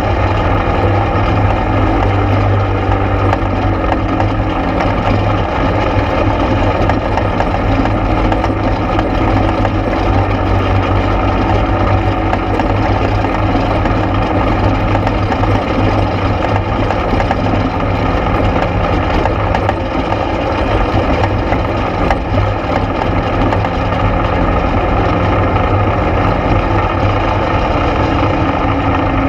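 ATV engine running at a steady, unchanging pace while the quad is ridden along a trail, a loud low drone.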